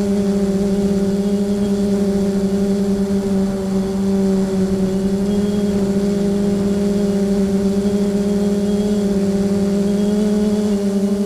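FPV quadcopter's electric motors and propellers humming at a steady pitch, heard from the onboard camera, with a slight waver in pitch as the craft flies low and level.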